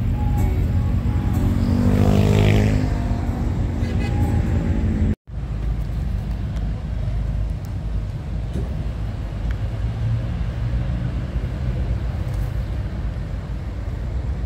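City street traffic: a motor vehicle passes close about two seconds in, its engine pitch rising and then falling as it goes by. After that comes a steady low traffic rumble, broken by a split-second audio dropout about five seconds in.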